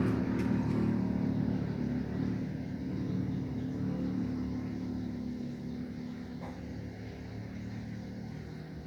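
A motor vehicle's engine running steadily, growing gradually fainter as it goes on.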